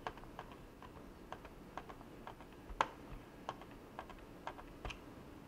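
Small, irregular clicks and ticks of a screw being fitted and turned with a hand screwdriver into the plastic bottom case of a Lenovo B590 laptop, with one sharper click a little before the middle.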